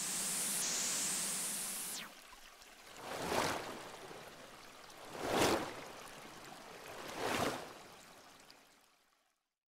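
Logo-intro whoosh sound effects: a rising swoosh of noise that cuts off abruptly about two seconds in, then three swelling whooshes about two seconds apart, each rising and falling away.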